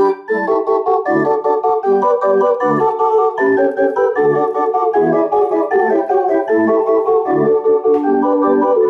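Small MIDI-driven street organ (barrel organ) playing a lively tune on its metal pipes, with the melody over a regular pulse of bass notes about twice a second. There is a short gap right at the start before it picks up again.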